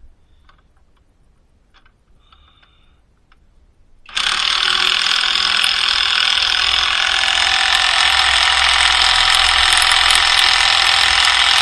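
Hercules cordless impact wrench hammering a suspension control-arm bolt tight. It starts about four seconds in and runs without a break, hammering on after the bolt has stopped turning as it drives the bolt to roughly 150 ft-lb.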